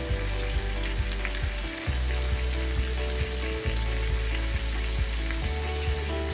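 Chicken pieces sizzling in hot oil in a frying pan as lemon juice is squeezed over them. Background music with a steady beat and low held notes plays under it.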